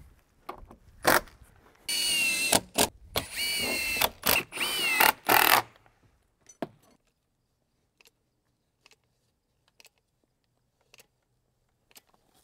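Cordless drill driving screws through a wood block into the door framing: several runs of motor whine over about four seconds, the pitch wavering as each screw goes in. A few faint clicks follow.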